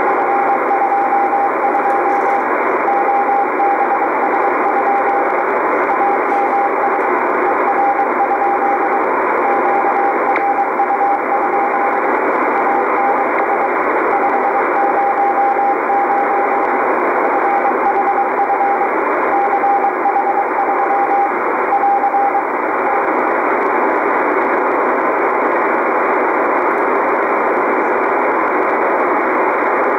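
Morse code CW marker from the KSM maritime coast station on 16.914 MHz shortwave, heard through an Icom IC-R8500 receiver: a single steady tone keyed on and off in dots and dashes over loud band hiss. The keying stops about two-thirds of the way through, leaving only the hiss.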